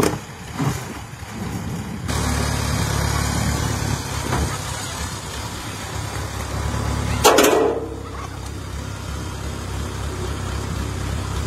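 Farm tractor engine idling steadily with a low hum. There is one brief, loud, sharp noise about seven seconds in.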